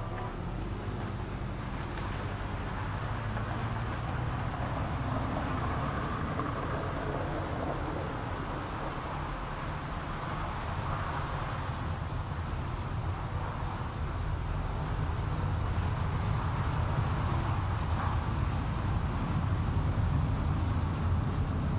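Insects chirring steadily at two high pitches over a low rumbling noise, which grows a little louder in the second half.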